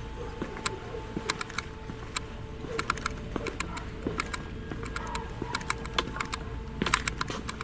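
Irregular sharp clicks and crackles in scattered clusters, loudest near the end, over a faint steady hum.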